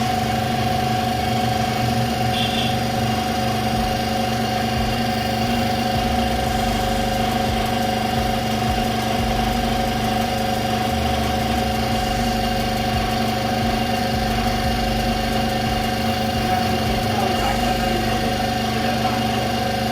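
Steady machine hum at an even level, holding the same pitch throughout.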